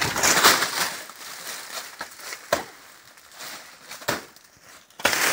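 A machete chopping into a banana plant's soft, fibrous stem, with crunching and rustling of the dry banana leaves: a loud crunching rustle at first, then a few separate sharp chops about two and a half and four seconds in, and another loud burst near the end.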